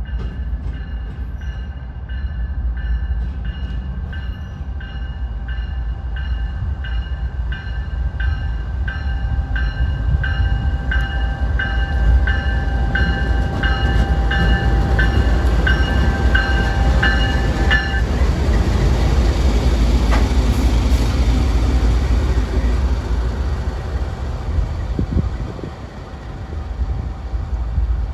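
A GE Dash 9-40CW diesel locomotive running light, with no cars behind it. Its deep engine rumble swells as it approaches and passes close by and is loudest in the middle. Through the first two-thirds a bell rings steadily about twice a second, then stops suddenly.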